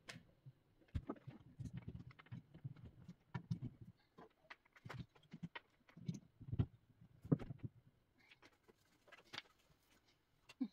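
Scattered light clicks and soft knocks of a plastic wall tap and plug being handled and fitted into a wall outlet, irregular and close to the microphone.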